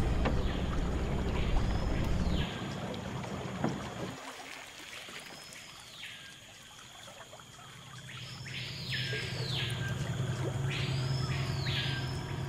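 Small Yamaha 15 outboard motor running steadily at low speed; it drops away after about two seconds and comes back in the second half. Over it, a bird gives repeated swooping whistled calls that rise and fall, several in quick pairs near the end.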